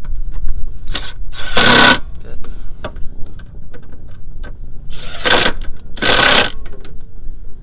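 Cordless Ryobi drill driving the T30 screws of a Can-Am X3's CVT clutch cover back in, running in four short bursts in two pairs, with light clicks between.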